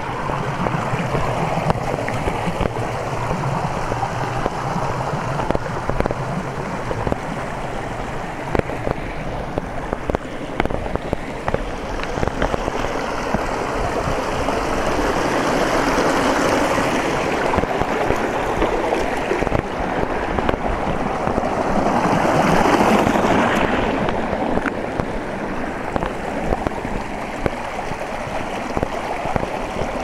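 Shallow stream running and splashing over rock slabs, a steady rush of water that swells louder twice where it spills over a small rock ledge.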